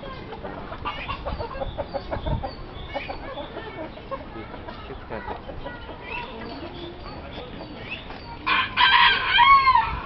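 A rooster crowing near the end, one crow of about a second and a half that is the loudest sound, after softer clucking from the chickens.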